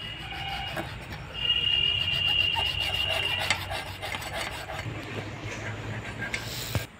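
Hand hacksaw cutting through a plastic PVC water pipe, quick back-and-forth rasping strokes. A high thin ringing rides over the strokes in the loudest stretch, from about one and a half to three and a half seconds in, and the sawing stops abruptly near the end.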